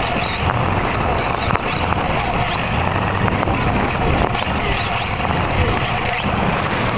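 Onboard sound of a radio-controlled touring car racing, its electric motor whine gliding up in pitch several times as it accelerates, over a steady rushing noise of the running gear.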